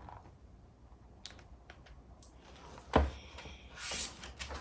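Handling of a picture book: a few soft clicks, a single louder knock about three seconds in, then a brief papery rustle near the end as a page is turned.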